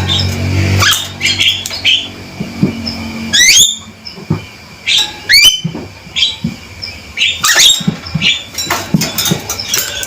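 Male Javan myna calling: a series of loud, harsh chattering notes broken by a few quick rising whistles. A low steady hum sounds underneath for the first second.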